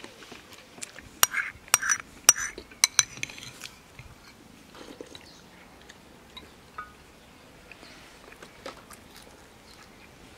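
Crisp crunching as someone bites and chews pieces of raw onion, a quick run of loud crunches in the first few seconds. After that come fainter chewing and light clinks of spoons against bowls.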